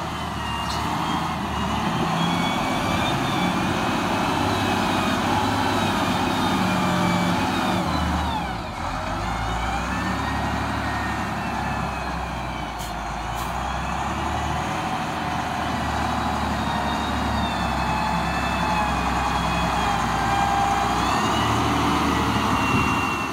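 Volvo BM 4500 wheel loader's diesel engine working hard under load as it digs into and lifts overburden, its speed rising and falling, with a high whine that glides up and down. It eases off briefly about eight seconds in.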